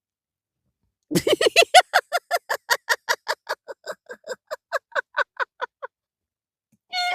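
A person laughing in a long run of quick, even "ha-ha-ha" pulses, about five a second, the pitch easing slightly downward; the laugh starts about a second in and stops near six seconds, and a short held vocal note begins just before the end.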